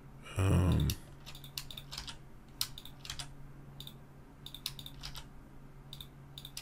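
Computer keyboard keys and mouse buttons clicking irregularly, a few clicks a second, over a faint steady low hum. A brief louder sound comes about half a second in.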